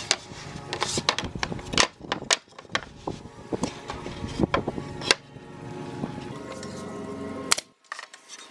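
Pine boards knocking and clattering against each other and against a wooden tabletop as they are handled and stood on edge. The knocks come thick and fast for about five seconds, followed by a quieter stretch and one last knock near the end.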